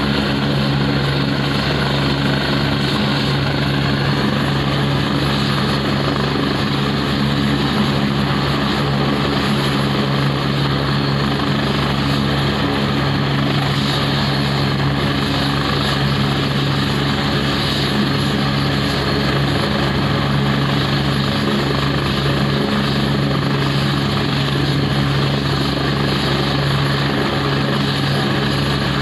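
AgustaWestland AW109 twin-turbine helicopter running on the ground with its main rotor turning: loud, steady turbine and rotor noise that neither rises nor falls.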